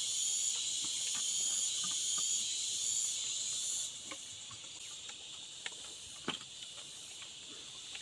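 Insect chorus, a steady high-pitched buzz that drops off sharply about four seconds in, with a couple of faint clicks of utensils on plates after it.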